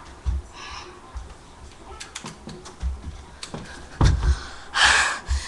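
Scattered light clicks and taps close to the microphone, then a heavy knock about four seconds in, followed by a loud breathy rush.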